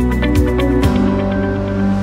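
Instrumental music: held chords over a light, regular ticking beat that drops out a little under a second in, leaving sustained low notes.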